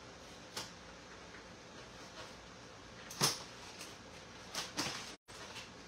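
A few short scrapes and knocks from the old door gasket of a Vendo 81 vending machine being cut and pried out by hand with a knife. The loudest comes about three seconds in and a small cluster follows near the end, over a steady background hum.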